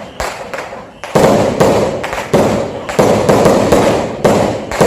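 New Year fireworks going off in quick succession: a rapid run of overlapping bangs and crackles, getting much louder about a second in.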